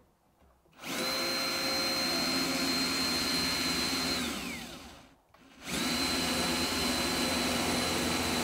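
Cordless drill running at steady high speed, drilling rivet holes at the side of a plastic kayak where a carbon plate is being fixed. About four seconds in, it winds down with a falling pitch. A second later it starts again.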